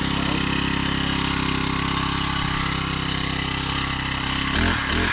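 Engine of a land-clearing machine running steadily, with a steady high whine over it; a brief louder noise comes in near the end.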